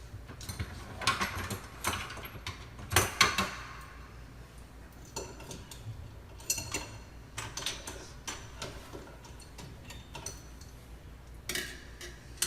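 Irregular metal clinks, knocks and short scrapes of hand tools and fittings as rusted kitchen faucet valves are worked on under a sink, the loudest knocks about three seconds in.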